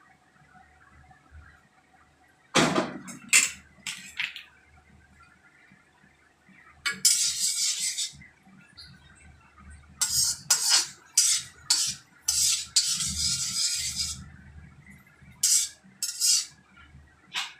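Metal spoon scraping and knocking against an iron kadhai while stirring mustard seeds in hot ghee, starting about two and a half seconds in: sharp clinks and clatters with two longer scraping strokes between them.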